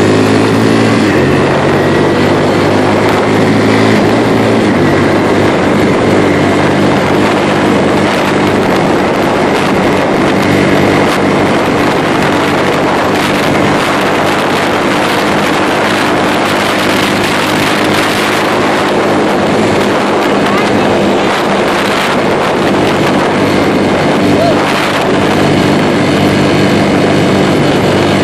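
Kawasaki ATV engine running steadily while the quad is ridden along a gravel road.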